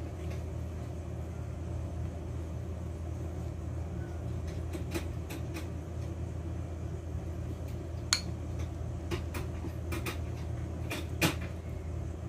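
A metal utensil stirring dry flour batter in a glass mixing bowl, with scattered sharp clinks against the glass, over a steady low hum.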